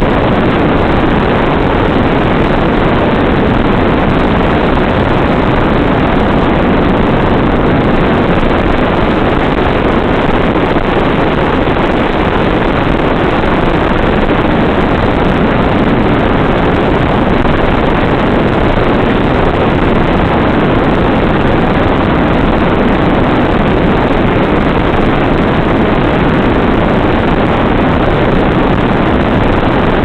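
Steady, loud rushing noise of wind on the onboard microphone of a Nano Goblin FPV flying wing in fast, windy flight.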